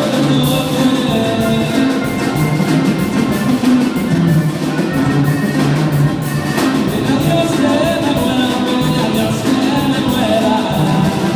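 Mexican regional band music with drums and percussion keeping a steady beat under held instrumental tones.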